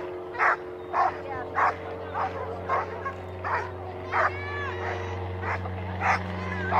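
Dog barking repeatedly in short barks, about two a second, with a brief pause near the end, over a steady low hum.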